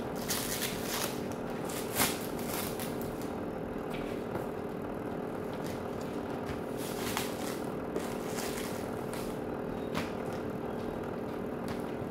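Scattered clicks and knocks of plastic garment-steamer parts being handled and fitted together, over a steady hum.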